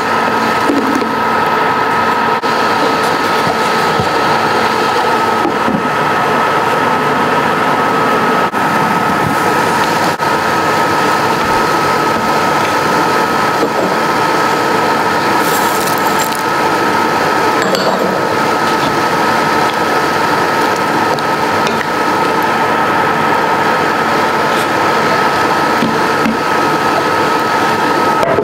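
A machine running steadily: an even, constant noise with a steady high whine in it.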